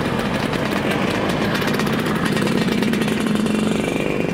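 Motor scooters riding slowly past in a procession, their small engines running at low revs, getting louder about three seconds in as one passes close.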